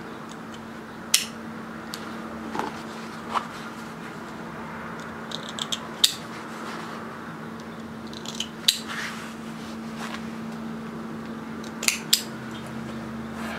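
Small sewing scissors snipping fabric and threads: a string of short, sharp snips at irregular intervals, over a steady low hum.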